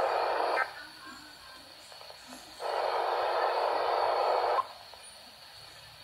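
Midland NOAA weather radio's speaker sounding two harsh bursts of hissy noise, one about a second long and one about two seconds long, with faint hiss between them. This is the garbled alert signal at the start of the NOAA Weather Radio Required Weekly Test, where the SAME header and 1050 Hz tone come through badly on this transmitter.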